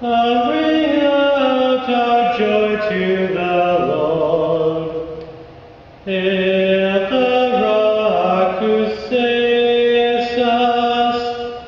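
Slow sung chant with long held notes in two phrases. The first fades out about five seconds in, and the second starts about a second later.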